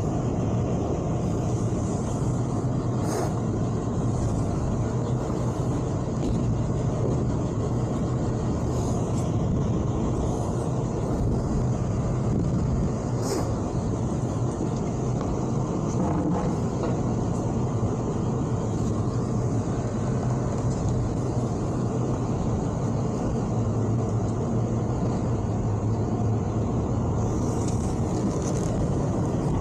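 Towboat's engine idling steadily with a low, even hum, with a few faint knocks over it.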